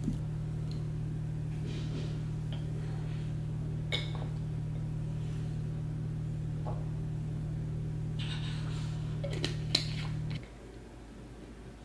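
A steady low hum, such as a running appliance or motor makes, that cuts off suddenly near the end, with a few light clicks and knocks over it.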